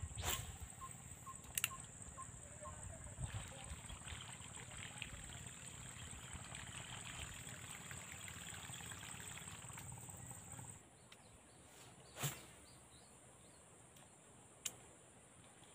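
Quiet swamp-side ambience with a steady high insect buzz that cuts off about ten seconds in, and a few sharp clicks from the angler's casting rod and reel.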